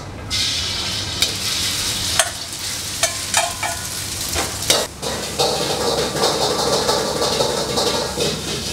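Fried rice cooking in a wok: beaten egg sizzles as it hits the hot oil, then rice is stirred in with a ladle. A steady sizzle runs under sharp metal clanks of the ladle against the wok, several times.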